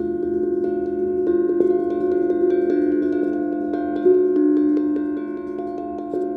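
Large brass singing bowls ring with long, steady, overlapping tones while mallets strike notes over them in quick succession, on the bowls and a Happydrum steel tongue drum. The loudest strike comes about four seconds in.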